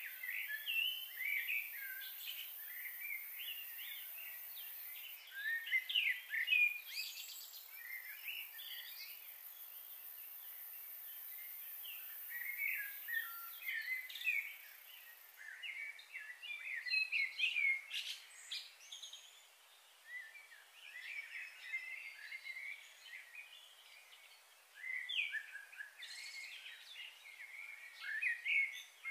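Small birds chirping and singing in bursts of quick, high notes, with lulls of a couple of seconds between bursts.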